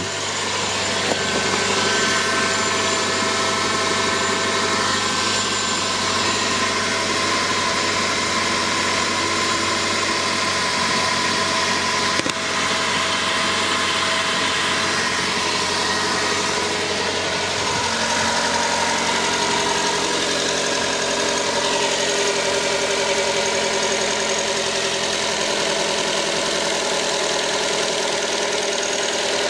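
Car engine idling steadily, running on freshly changed oil.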